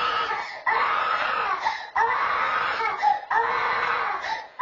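Toddler crying in a string of long wails, each about a second long, with quick breaths between.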